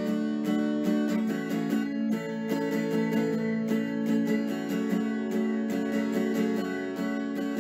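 Background music: an acoustic guitar playing a steady run of notes.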